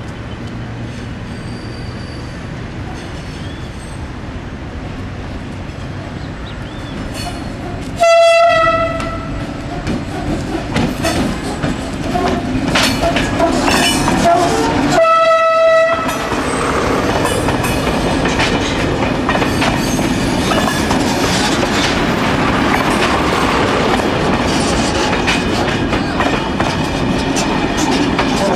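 Diesel passenger railcar train running, sounding its horn in two short blasts about seven seconds apart. The train then passes close by, its engine loud and its wheels clicking rhythmically over the rail joints.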